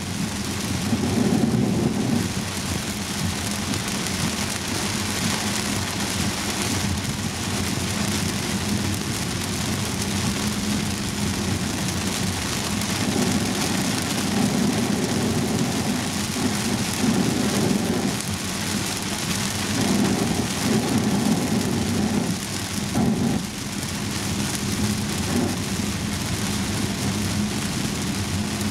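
Heavy rain falling on a Volvo S90's roof and windscreen, heard from inside the cabin as a steady dense hiss, over the low rumble of the car running on the wet road.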